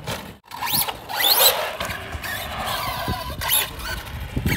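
Arrma Outcast 4S RC car's brushless electric motor whining, rising in pitch as it speeds up about a second in, then settling into a steadier whine.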